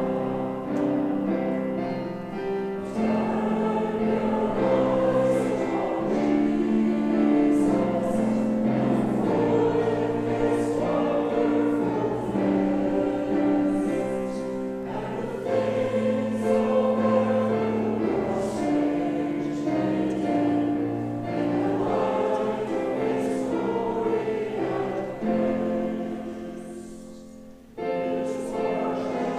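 A choir singing a hymn, with sustained chords that change every second or two and a brief pause between phrases near the end.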